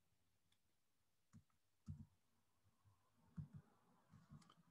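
A handful of faint, scattered computer keyboard keystrokes, a few in quick pairs, over near-silent room tone.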